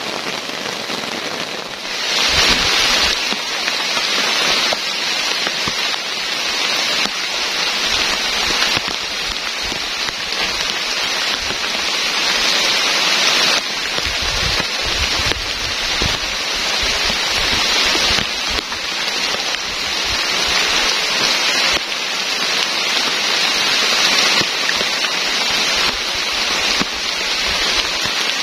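Heavy rain falling in a steady, dense hiss that gets louder about two seconds in.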